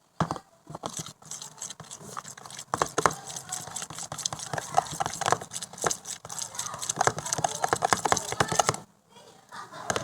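Homemade slime being squished and stretched by hand, a dense run of small sticky clicks and crackles that stops about nine seconds in.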